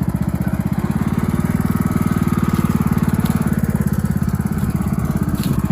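John Deere lawn tractor's engine running steadily, close up, with a fast, even firing beat.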